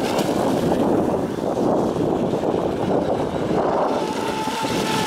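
Wind buffeting the microphone over the distant whine of an RC speedboat's brushless electric motor (Leopard 2860 2700kv) running at speed across the water. The motor's thin, steady whine becomes clearer near the end.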